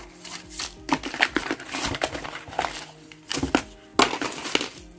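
Paper wrapping and bubble wrap crinkling and rustling in irregular bursts as a hand rummages in a cardboard subscription box, with soft background music underneath.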